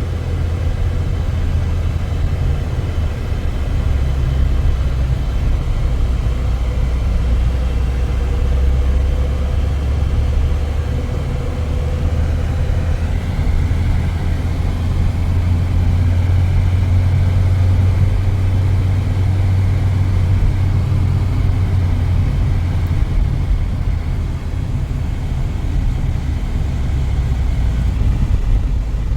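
Steady low rumble of a vehicle running on the move, with faint steady engine tones above it.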